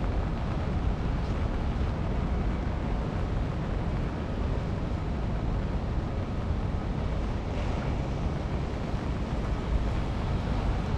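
Steady ambience of a city street in the rain: an even wet hiss over a low rumble, with no distinct events standing out.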